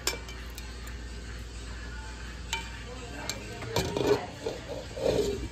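Cooking utensils and pots clinking: a few separate clinks, then a busier stretch of clatter in the second half.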